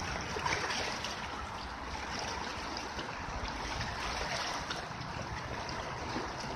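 Small river waves lapping and splashing against shoreline rocks, a steady wash with little splashes now and then.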